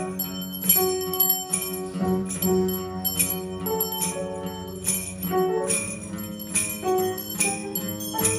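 Russian church bells rung as a chime: small high bells struck in a quick, uneven pattern several times a second, each strike ringing on over the steady hum of deeper bells.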